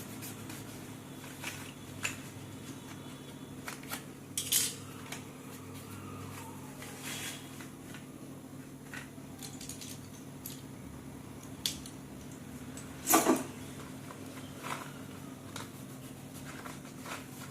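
Slate pencils and their packaging being handled: scattered small clicks, taps and rustles, with one louder sharp knock about thirteen seconds in, over a faint steady hum.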